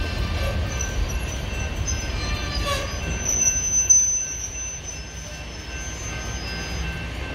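Freight train boxcars rolling past close by, with a steady low rumble of the cars on the rails. A thin, high wheel squeal rides over it, loudest about four seconds in and fading toward the end.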